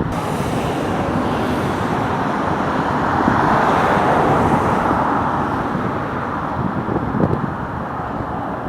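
Jet airliner passing: a rushing engine sound that swells to its loudest about four seconds in, then slowly fades, over a low rumble of wind on the microphone.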